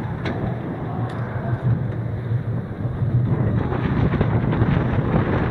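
Wooden roller coaster train climbing the last of the lift hill with a steady low rumble, then cresting the top: from about three and a half seconds in, the rolling noise and wind rush grow rougher and louder as the train starts over into the drop.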